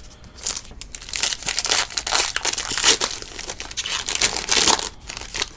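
Foil wrapper of a football trading-card pack crinkling and tearing as it is ripped open and pulled apart by hand, a dense run of crackles that dies away near the end.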